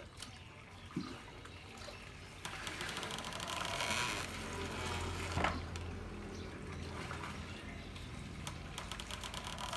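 Water pouring and trickling, getting louder about two and a half seconds in, with a few sharp knocks scattered through it.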